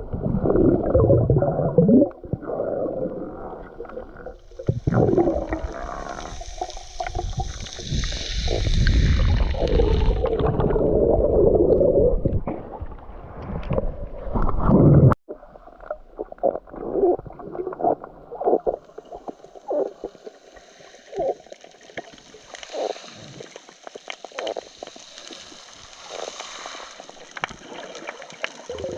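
Water gurgling and rushing around the microphone, dense and loud for the first half. About halfway through it cuts off suddenly to quieter water with scattered clicks and a high hiss.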